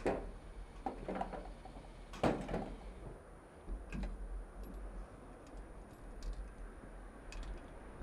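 Scattered clicks and knocks of the 2009 Yamaha FZ1N's locking fuel filler cap being handled and shut with its key after refuelling, the loudest cluster a little after two seconds in.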